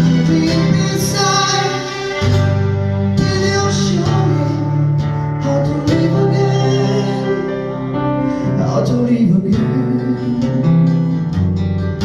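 Live music: singing over plucked acoustic guitar, with a bass line that changes note every second or two.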